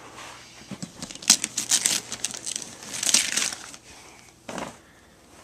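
Paper gift wrapping being crinkled and torn by hand as a present is unwrapped, in several quick spells of rustling and ripping.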